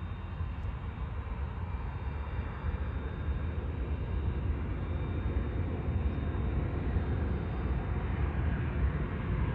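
Boeing 737-800's CFM56 jet engines on final approach, a low rumbling roar that grows steadily louder as the airliner nears.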